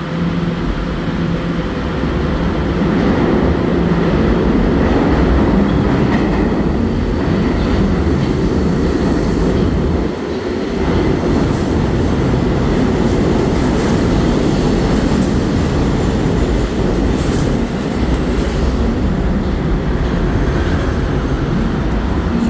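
New York subway refuse train of R42 cars passing through, its wheels giving a steady heavy rumble on the rails with clickety-clack over the joints. The rumble dips briefly about ten seconds in, and a few sharp high clicks or squeals come later.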